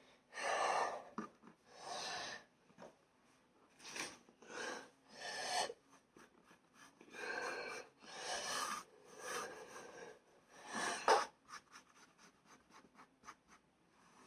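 A table being wiped clear of crumbs: a series of rubbing, swishing strokes, each about half a second to a second long, then a run of quick light ticks near the end.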